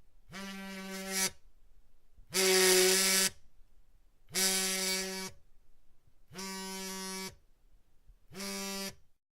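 Buzzer sound effect: a low-pitched electric buzz sounding five times in bursts of about a second, roughly two seconds apart. The third and fourth buzzes are louder than the rest.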